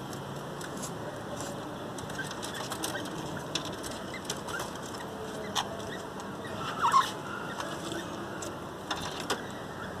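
Caged budgerigars chirping, with scattered short chirps and clicks and one louder call about seven seconds in.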